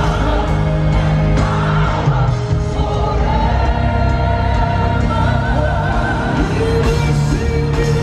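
Music with singing over a strong, steady bass.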